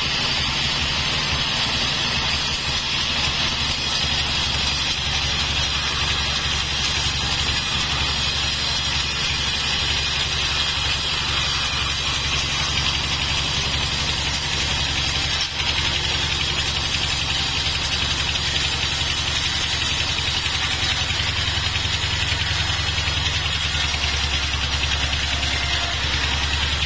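Band sawmill running steadily as its blade rips lengthwise through a log: a constant low motor hum under a steady hiss from the blade cutting the wood.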